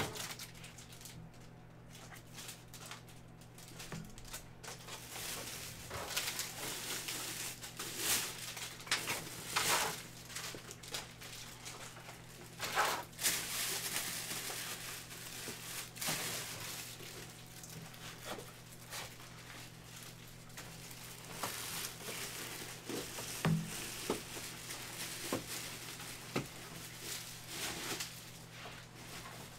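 Scattered rustling, crinkling and light knocks from packaging and boxes being handled, over a steady low hum.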